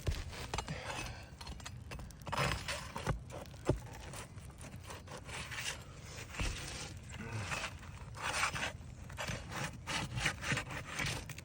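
Scraping and rubbing of a tool worked under roof shingles to get the roofing nails out, in irregular strokes with a few sharp clicks.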